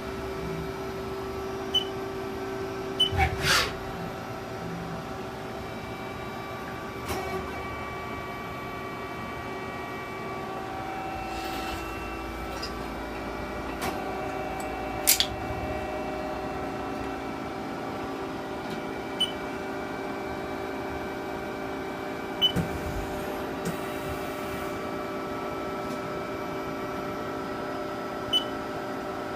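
Haas ST-10T CNC lathe running: a steady machine hum made of several tones, with mechanical clicks and clunks now and then and a few short high beeps.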